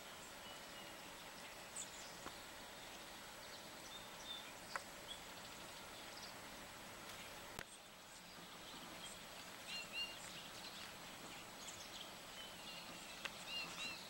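Faint outdoor background with scattered short, high chirps from small songbirds, more of them near the end, and a few faint ticks.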